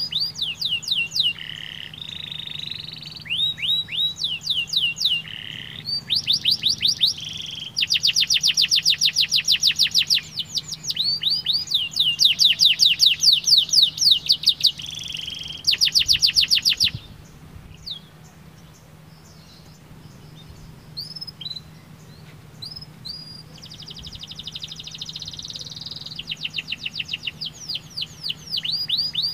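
Domestic canary singing: long fast trills of rapidly repeated high notes alternating with rolling phrases, breaking off for several seconds midway to a few scattered chirps before the trills resume.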